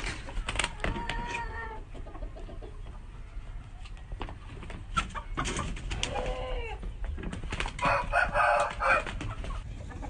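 Roosters calling, with three short arched calls: one about a second in, one past the middle, and a harsher one near the end. Sharp clicks and scuffs fall between them.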